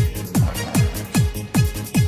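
Electronic dance music with a steady kick drum on every beat, about two and a half beats a second, and hi-hat ticks between the beats.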